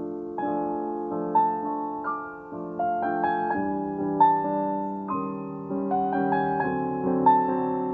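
Piano played slowly: a melody of single notes over held chords, each note struck and left to ring.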